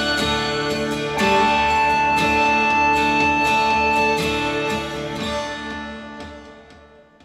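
Music with plucked and strummed guitar, played back through Elac Adante AS-61 bookshelf loudspeakers as a sound clip, fading out over the last two seconds.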